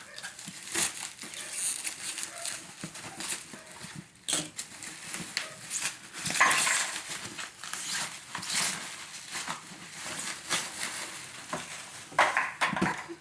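Toy box packaging being handled, crinkling and rustling with scattered sharp clicks and knocks.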